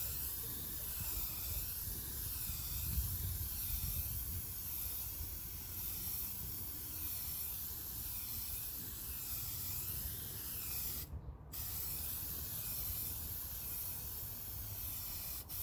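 Aerosol can of Meguiar's headlight clear coating spraying in a continuous hiss as the final of three coats goes onto a sanded headlight lens, with one brief pause about eleven seconds in.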